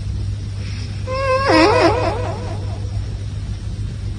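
A high-pitched, wavering vocal cry lasting just over a second, starting about a second in, over a steady low hum.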